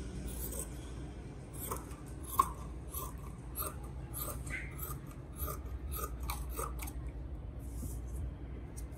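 Large metal tailor's shears snipping through cloth, a run of quick cuts at about three a second that stops about seven seconds in.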